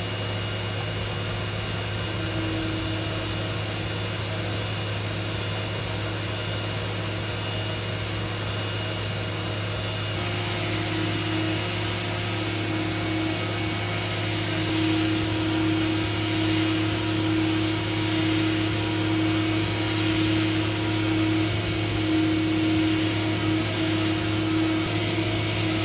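CNC machining center milling prehardened NAK55 mold steel with a two-flute ball end mill: a steady spindle hum and whine under a hiss of cutting noise. The hiss and the whine grow louder about ten seconds in.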